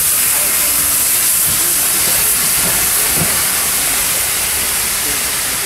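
Steam locomotive releasing steam with a loud, steady hiss that eases slightly near the end.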